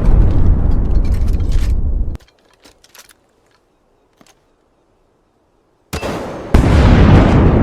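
Loud rumbling sound effect that cuts off suddenly about two seconds in, a few faint clicks, then a second loud rumble starting about six seconds in.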